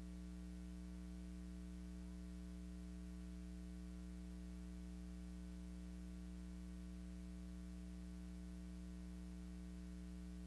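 Steady low electrical mains hum with a faint hiss underneath, unchanging; no other sound.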